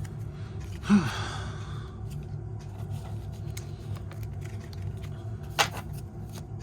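A man's sigh about a second in: a short voiced onset that falls in pitch, trailing into about a second of breathy exhale. A single sharp click comes near the end, over a steady low hum.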